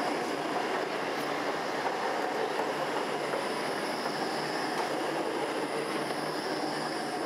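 An articulated low-floor electric tram running past slowly on street track: a steady rolling noise of wheels on rail, with a faint high whine.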